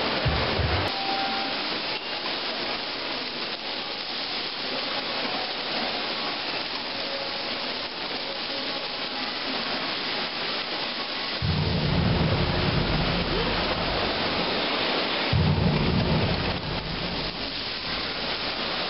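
Water jets of an indoor show fountain splashing steadily into their basin, with a deeper rumble that swells in about twelve seconds in and lasts until about sixteen seconds.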